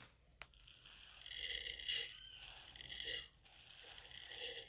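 Whole mustard seeds poured and spooned from a plastic bag into a mini food chopper's bowl: a faint rattling hiss in three short spells.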